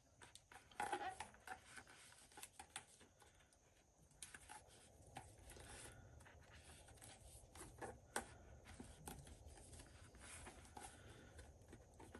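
Near silence with faint rustles and light clicks of hands handling and pressing a paddle's grip wrap onto the handle, with a slightly louder rustle about a second in.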